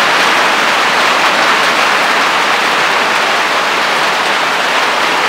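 Rain falling steadily, a loud, even hiss that does not let up.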